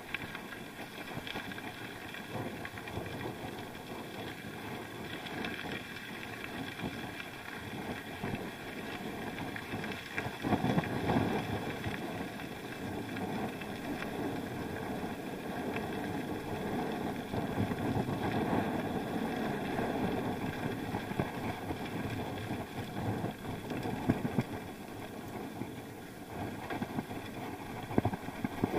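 Wind rushing over an action camera's microphone during a bike ride, with rumbling road noise; it grows louder about ten seconds in.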